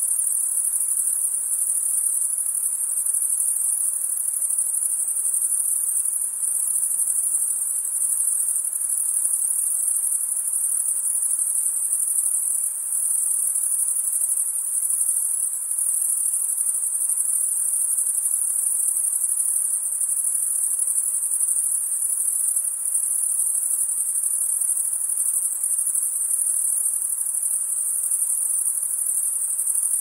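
A dense chorus of night insects: a steady, high-pitched shrill that runs on without a break.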